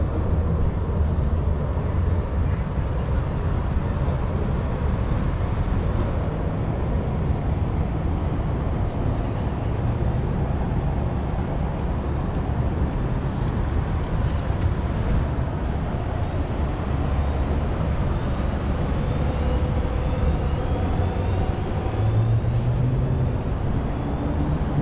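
Steady urban road traffic noise heard from a moving bicycle, with a constant low rumble.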